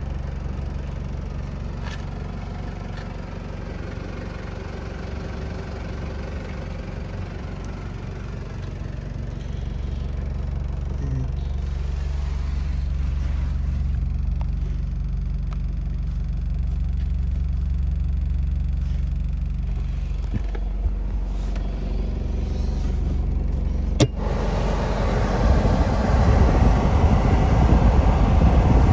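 Low, steady mechanical rumble. About three-quarters of the way through a sharp click, then the Denso heater's fan blowing air out of its floor vent, the air noise growing louder near the end.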